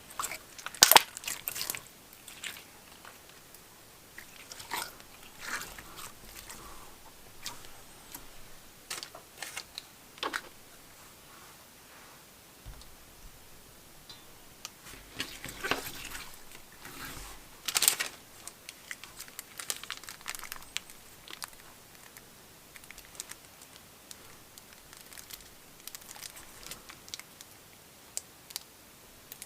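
Slime being worked by hand, with sticky clicks and crackles in irregular bursts, loudest about a second in and again around two-thirds of the way through.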